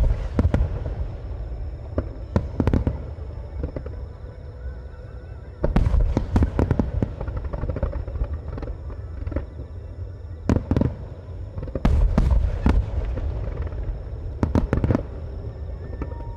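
Star mine fireworks barrage: aerial shells bursting in several rapid clusters of sharp bangs, with a low rumble between the volleys.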